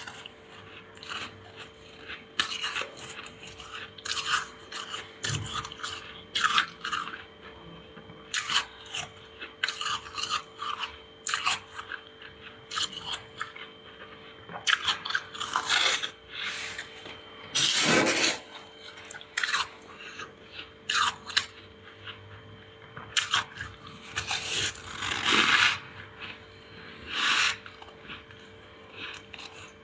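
Close-up crunching and scraping of freezer frost: a spoon scooping the soft frost and teeth biting and chewing it, in irregular short bursts with a few longer, louder crunches.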